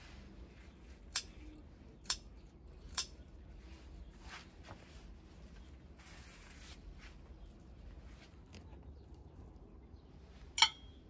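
Garden shears snipping: three sharp snips about a second apart, a couple of softer ones, a brief rustling hiss midway, and a louder snip near the end.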